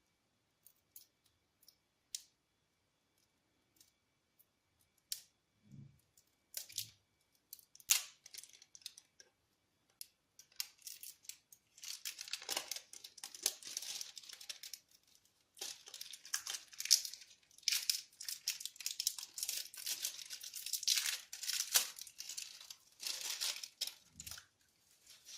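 Packaging being unwrapped by hand: a few scattered clicks and handling noises, then from about halfway through a long stretch of crinkling and tearing.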